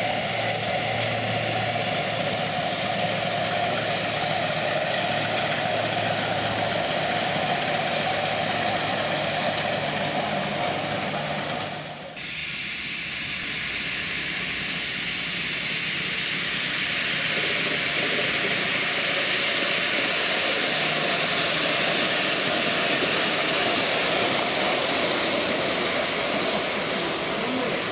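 Miniature live-steam locomotive running with riders on a raised-track passenger railway: a steady running noise with steam hiss. About twelve seconds in the sound dips sharply and changes to a broader, brighter hiss.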